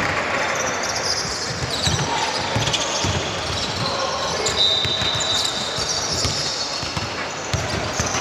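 Basketball bouncing on a court floor during play, irregular thuds, with a short high squeak about halfway through.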